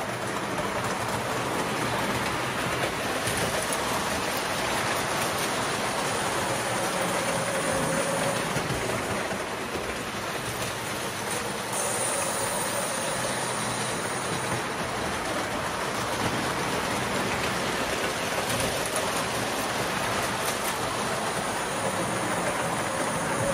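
Toy electric trains running on metal track, with a steady rattling run of wheels and motors as a red streamlined toy train passes close by.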